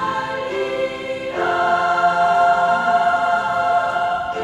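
Girls' choir singing, moving about a second and a half in to a long held closing chord that is released right at the end.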